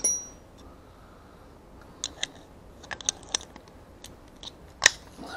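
Hard plastic fish finder mount parts being handled and fitted together: scattered sharp clicks and clacks, a cluster of them between about two and three and a half seconds in, and the loudest near the end.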